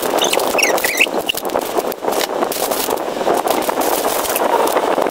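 Plastic chocolate wrappers and packets crinkling and rustling as they are gathered up by hand, with a few short squeaks in the first second or so.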